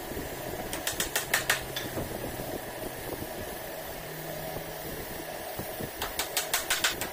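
Light hammer taps on wood as short wooden spacers are knocked into a door-frame rail: a quick burst of about five taps about a second in, then a faster run of taps starting about six seconds in. A mechanical fan hums steadily underneath.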